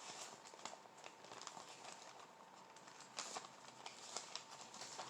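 Near silence with faint, scattered soft clicks and rustles of handling, over a faint steady tone.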